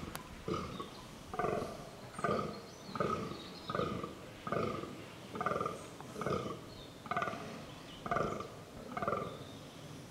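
Fallow deer buck groaning in the rut: a regular series of deep, rough grunts, a little more than one a second.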